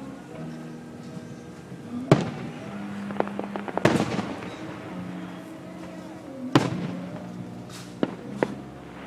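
Aerial fireworks shells bursting, with sharp bangs about two seconds in, near four seconds and near six and a half seconds, and two more close together near the end. A quick run of smaller crackles comes just before the second bang.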